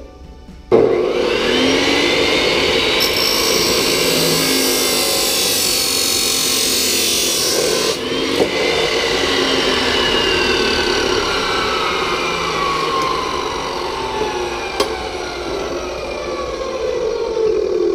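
Skilsaw abrasive chop saw starting up about a second in and cutting through a painted metal shower rod, a harsh grinding hiss. Near the halfway point the cut ends and the motor winds down, its whine falling steadily in pitch.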